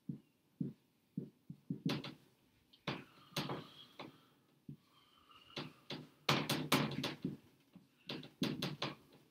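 A string of short, irregular taps and knocks in a small room, coming thicker and louder about six to seven seconds in.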